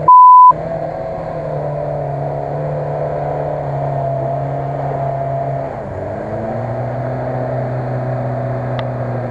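Lada Niva engine climbing a muddy slope, a steady drone whose pitch dips about six seconds in and then holds lower. A short, very loud bleep tone cuts in right at the start.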